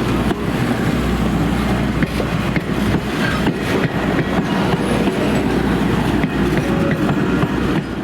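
Corn harvesting machinery running at work: a steady low rumble under a constant rattling clatter of many small knocks.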